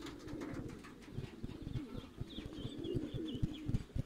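Domestic pigeons cooing, with a run of soft low thumps through the second half and a few short high chirps in the middle.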